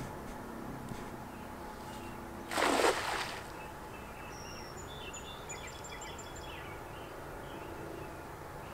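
A cast net landing on the river with one short splash about two and a half seconds in. A few faint bird chirps follow.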